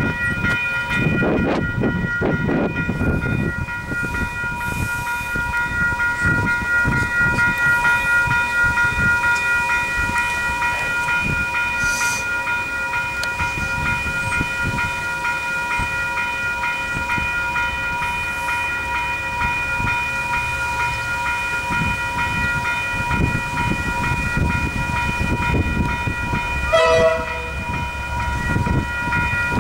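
Level crossing's electronic warning bells ringing steadily while a KiwiRail DL-class diesel locomotive hauling a freight train approaches, its engine and wagons rumbling. A brief horn sounds near the end.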